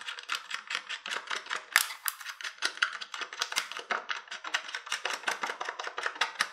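A thin stirring stick clicking and scraping against the inside of a thin clear plastic cup, several strokes a second, as freshly mixed two-part casting resin is stirred.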